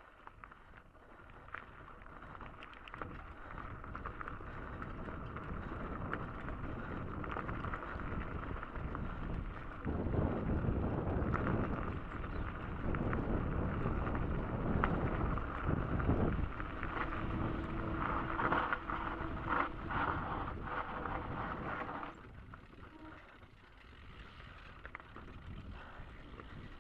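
Wind buffeting the microphone while riding a bicycle along a trail, with rumble and rattling clicks from the ride. It grows louder and rougher in the middle and eases off near the end.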